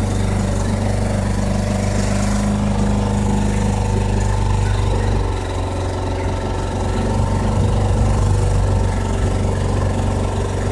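A motorboat's engine running steadily, a low, even hum, its note shifting slightly about five seconds in.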